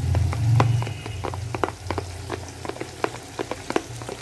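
A spoon stirring curd and ground spices in a plastic bowl, with quick, irregular clicks and scrapes of the spoon against the bowl. A low rumble is loudest in the first second and then fades.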